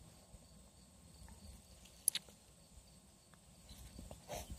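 Quiet outdoor background with faint, evenly pulsing insect chirping, broken by a single sharp click about two seconds in.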